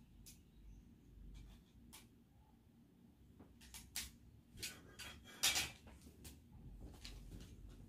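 Scattered light clicks and knocks from clothes hangers and closet items being handled, with a short, louder scrape about five and a half seconds in.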